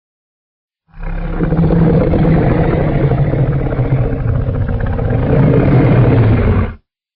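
Custom-made Godzilla monster roar sound effect: one long, low roar of about six seconds that starts about a second in and cuts off abruptly.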